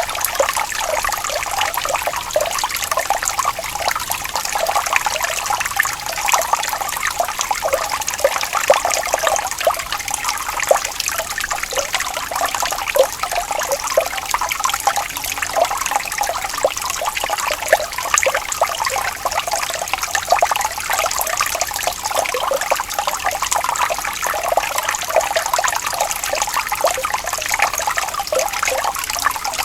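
Running water trickling and babbling steadily, a dense patter of small splashes with no pauses.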